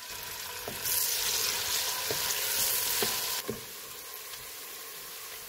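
Sliced onions sizzling as they fry in hot oil in a metal pressure cooker, browning toward golden. The sizzle grows louder from about a second in for two and a half seconds, with a few knocks of a wooden spoon on the pot as the onions are stirred, then settles to a quieter steady sizzle.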